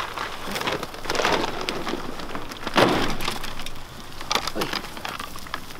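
Red deer hinds crowding and feeding from a bucket of sugar beet pellets: irregular rustling and crunching, with a few short calls among the herd.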